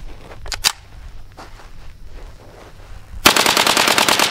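A couple of faint clicks, then near the end a very rapid string of 9mm rifle shots lasting about a second, fired from a Ruger PC Carbine loaded with Winchester steel-cased ammunition.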